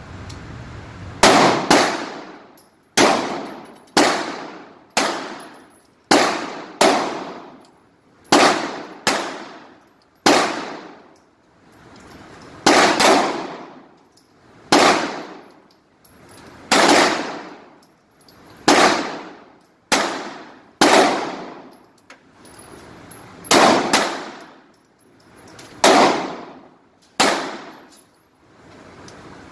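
Pistol firing shot after shot, some twenty sharp cracks mostly about a second apart with a few quick doubles. Each shot rings out in a long echo off the walls of an indoor shooting range.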